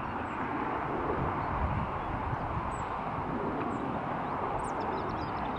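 Distant jet engines of taxiing airliners making a steady hiss and rumble, with strong wind buffeting the microphone in the low end. A few faint bird chirps come near the end.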